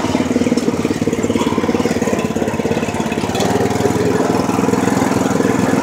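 Lawn mower engine running steadily, picking up a little in speed and loudness a little over halfway through.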